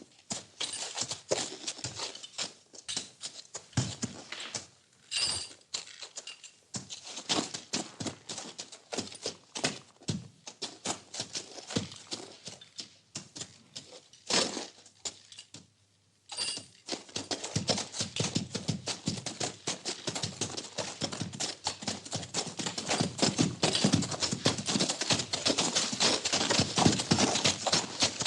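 Horses moving in a stable: irregular hoof knocks and clicks on the floor. From a little past halfway this turns into a dense, continuous crackle that grows louder towards the end.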